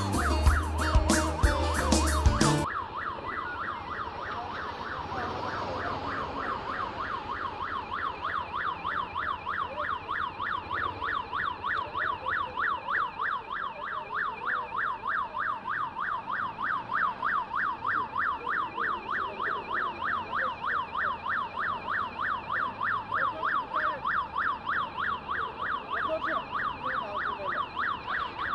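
Music for the first couple of seconds stops abruptly, followed by an emergency-vehicle siren in a fast yelp pattern. The siren wails up and down about three times a second and grows slowly louder.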